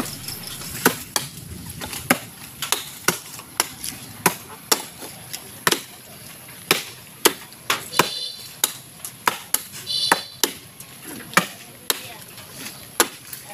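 Axe chopping into mango wood. Repeated sharp blows come at uneven intervals, roughly one to two a second.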